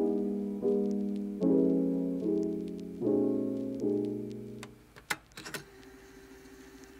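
Background piano music: soft chords struck about once a second that die away about two-thirds through, followed by a few faint clicks.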